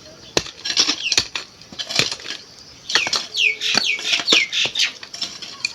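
Bird chirping: a run of quick, high, falling notes from about three seconds in, among scattered sharp clicks and knocks.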